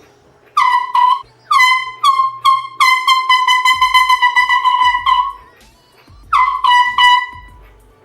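Handheld canned air horn blown in a string of short, loud honks, then a stuttering run of rapid blasts for about two seconds, then a few more honks near the end. Each blast starts slightly high and settles onto one steady tone. The can is frosting over and spewing cold propellant as it is held down.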